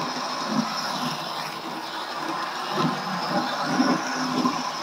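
Fleischmann N gauge model steam locomotive running round a small oval of track with two wagons: a steady whir from its small electric motor and the sound of the wheels running on the metal rails.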